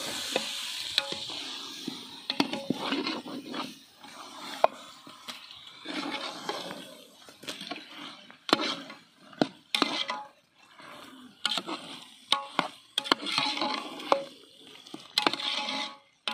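A long-handled metal ladle stirring raw chicken pieces through onion-tomato masala in a large metal pot, with irregular scrapes and clinks against the pot. A frying sizzle dies away over the first couple of seconds.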